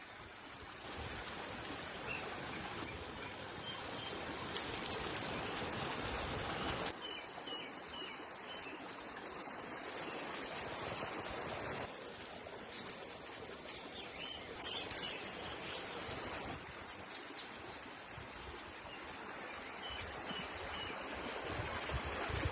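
Small birds chirping in short calls over a steady hiss that changes in level several times.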